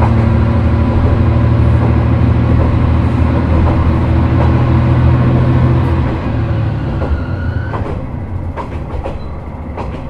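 Isumi Railway's Isumi 300-series diesel railcar 302 running under power with a steady low engine drone, the accelerating sound that the uploader suspects may be an unusual noise. About six seconds in, the engine note drops away, a brief rising whine follows, and a few sharp clicks come near the end.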